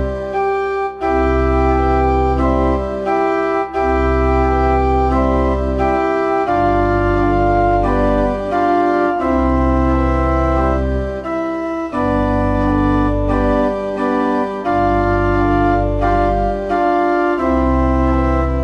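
Church organ playing slow sustained chords over deep pedal bass notes, the chords changing every second or two.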